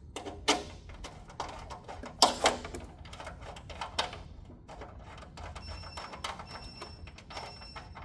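Irregular clicks, taps and light knocks of a short socket extension and small fasteners against the warmer's plastic bed mount as the screws are threaded in by hand. The sharpest knocks come about half a second and two and a half seconds in.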